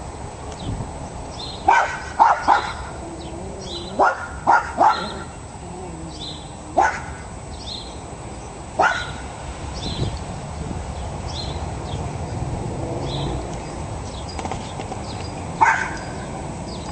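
Cairn terrier barking in short, sharp barks: a quick run of three about two seconds in, another three around four to five seconds, then single barks spaced out, the last near the end.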